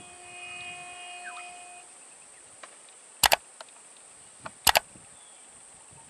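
Two sharp double knocks about a second and a half apart, the loudest sounds here, after a faint chord of steady tones in the first two seconds.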